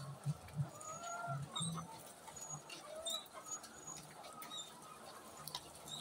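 A flock of caged white laying hens clucking and calling, with short rising and falling calls and scattered sharp clicks.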